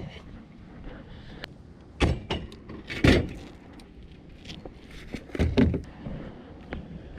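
Junk being handled and moved: three loud thuds with rattling, about two, three and five and a half seconds in, with small clicks and knocks between them.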